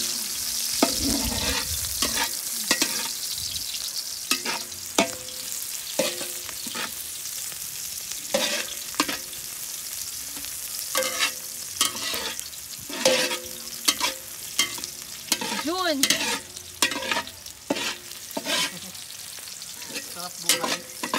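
Metal spatula scraping and knocking against a large aluminium wok in irregular strokes, over the steady sizzle of garlic and onion frying in oil, the first sauté of a pansit guisado.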